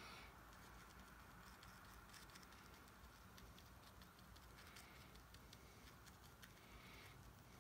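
Near silence, with faint scattered taps and light scratches of a watercolour brush dabbing paint onto paper.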